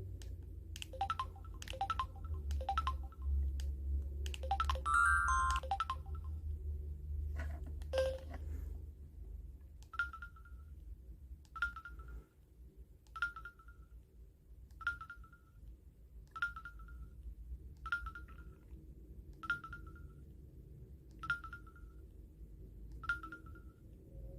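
Electronic beeps from a Samsung Anycall SCH-S530 mobile phone: a quick run of short key beeps with a brief little melody about five seconds in, then a single short beep repeating evenly about every 1.7 seconds.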